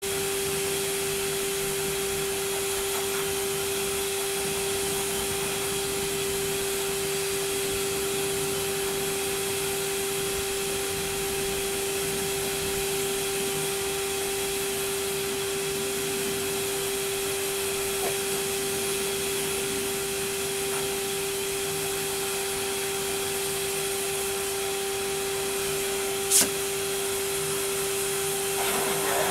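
Electric dog-grooming machine running steadily through a hose worked over a Tibetan Mastiff's thick coat: a constant motor whine and rush of air. A short sharp click near the end.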